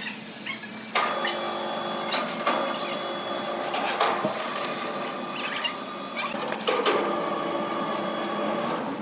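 A machine running with a steady hum, broken by several sharp knocks.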